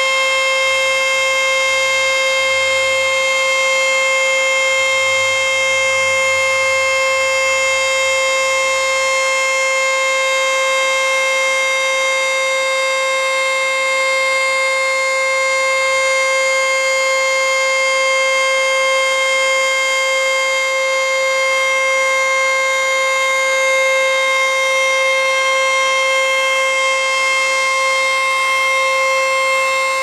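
ACA Screamer S-2 outdoor warning siren sounding its full-alert signal: one loud, steady held pitch with many overtones, neither rising nor falling.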